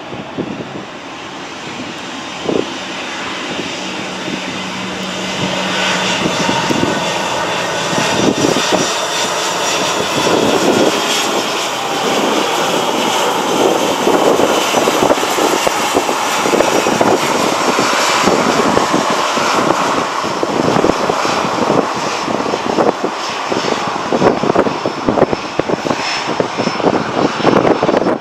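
Airbus A319's jet engines whining at taxi power as the airliner rolls past close by, growing louder over the first ten seconds or so and then holding steady.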